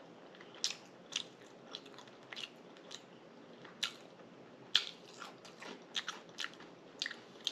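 Close-miked chewing of crunchy cheddar and sour cream potato chips: irregular crisp crunches, bunching to several a second in the second half, with one loud crunch a little before five seconds in.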